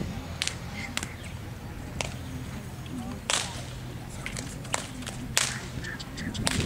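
Handler's whip cracking: about seven sharp snaps at irregular intervals, the loudest about three and a half seconds in, used to keep a loose mare and foal moving around an arena.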